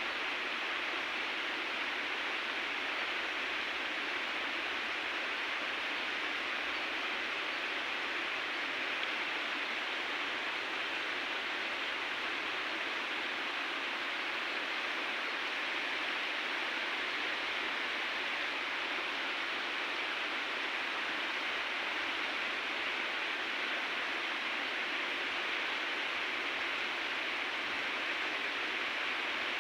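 River water rushing, a steady, even hiss with no breaks.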